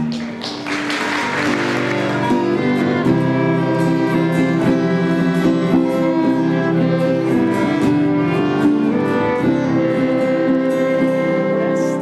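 Children's violin ensemble playing slow, held notes together. A short rush of noise comes in the first two seconds, before the strings settle in.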